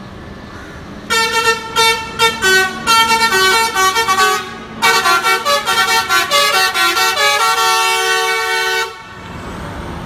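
A lorry's telolet horn, a multi-note musical air horn, playing a tune over the truck's running noise. It comes in two phrases, about one second in and again after a short break near the middle, and the second phrase ends on a longer held chord before it cuts off and the engine and road noise remain.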